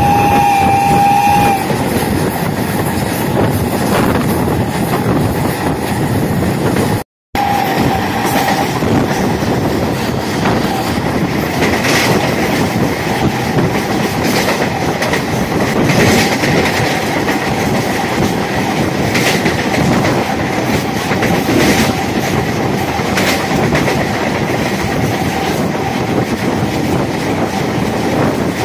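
MEMU electric multiple-unit train running at speed, its wheels clattering over the rails, heard from the open doorway. A horn sounds for about two seconds at the start. The sound cuts out for a moment about a quarter of the way through, and a faint steady whine runs under the clatter for the rest.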